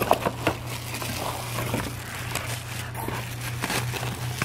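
Cardboard box and plastic bubble-wrap packaging rustling and knocking as hands reach in and lift out a wrapped hair clipper, with a few sharp clicks in the first half second.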